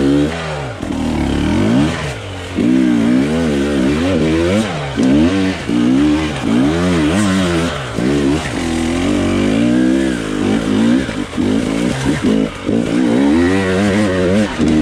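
Enduro dirt bike engine revving up and down over and over as the throttle is worked and released on a slow, steep technical climb, the pitch rising and falling about once a second with short dips between.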